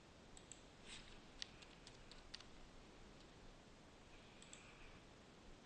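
Faint computer keyboard and mouse clicks: a quick run of light keystrokes in the first couple of seconds as a short word is typed, over near-silent room tone.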